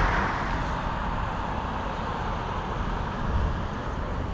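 Road traffic: a steady hiss of tyres on wet tarmac, with a passing vehicle fading away in the first second.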